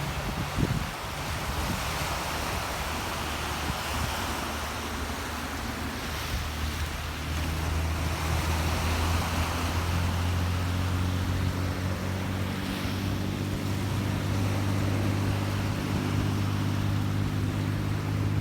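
Wind buffeting the microphone over rushing water, with a jet ski's engine running steadily that comes in about seven seconds in and stays at an even pitch.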